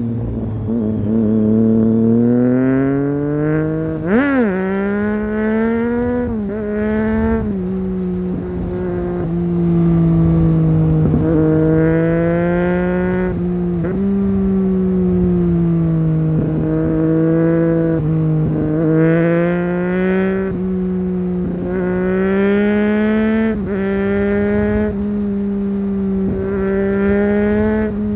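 Triumph Street Triple 675's inline three-cylinder engine through a LeoVince GP 3-2 exhaust with dB-killer, heard from on the bike while riding. The revs climb and drop again and again as it accelerates, with a sharp rev spike about four seconds in. Wind noise rumbles underneath.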